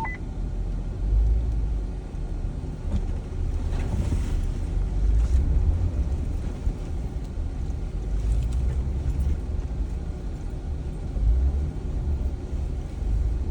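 A Jeep driving slowly over a rutted dirt trail: a steady low rumble of engine and tyres, with a few light knocks from the bumps about four and five seconds in.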